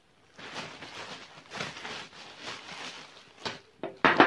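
Clear plastic bag rustling and crinkling as it is handled, then a short sharp knock near the end.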